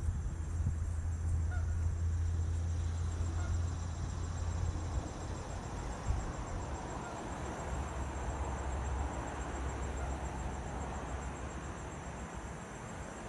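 Steady high-pitched buzzing of insects, with a low wind rumble on the microphone for the first few seconds.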